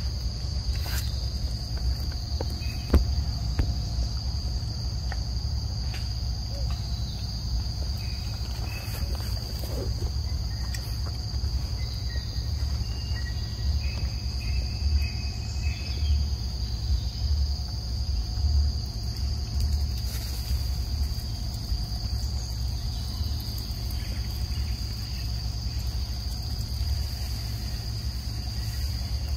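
Insects droning steadily at one high pitch, over a low rumble, with a few faint short chirps and clicks.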